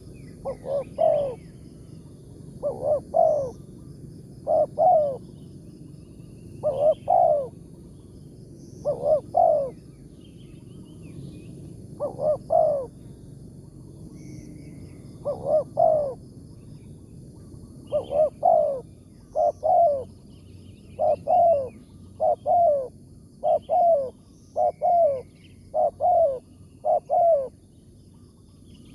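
Spotted dove cooing: about fifteen short phrases of two or three falling coos, a few seconds apart at first and coming faster, about one a second, toward the end.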